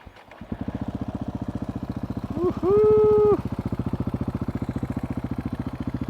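KTM 690 SMC single-cylinder engine with an Akrapovic exhaust being cold-started: it catches within about half a second and settles into an even, pulsing idle. About two and a half seconds in, a loud held tone sounds over it for about a second.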